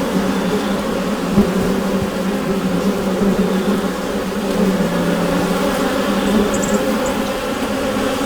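Honeybee colony inside a hive: the dense, steady buzz of many bees at once, an unbroken drone.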